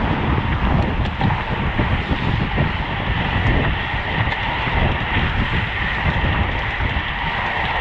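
Wind rushing over the microphone of a road bike at racing speed, a heavy fluttering rumble, mixed with steady tyre and road noise.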